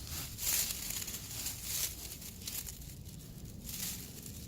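Hands rummaging through dry woodchip mulch, giving an uneven crunching rustle with louder scrapes about half a second in and again just before two seconds in.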